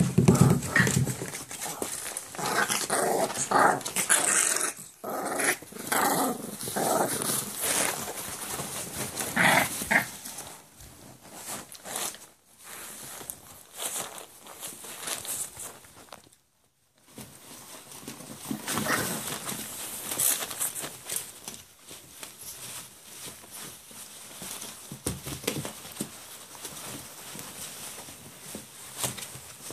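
Five-week-old bully-breed puppies growling at each other as they play-wrestle, with short calls coming thick in the first ten seconds. Shredded paper towels rustle and crackle under their scrabbling paws throughout. The sound cuts out completely for about half a second around the middle.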